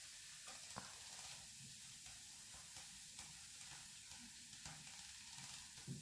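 Faint steady fizzing of baking soda reacting with white vinegar in a stainless steel bowl while a whisk stirs it. A few light clinks of the whisk against the bowl, one about a second in and the loudest near the end.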